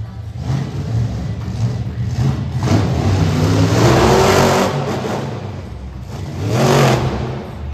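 Monster truck engine revving hard under throttle. The revs climb about three seconds in and peak near four seconds, then there is a second, shorter burst of revs near the end.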